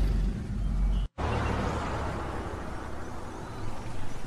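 Steady low rumbling background noise, broken by a sudden brief silence about a second in, where the sound track cuts.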